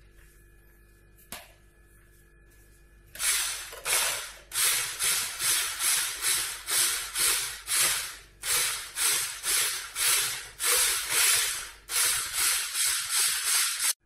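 Electric stick blender with a whisk attachment beating thick flour-and-milk pancake batter in a plastic bowl. It starts about three seconds in and goes in quick, even surges, about two or three a second, then cuts off abruptly.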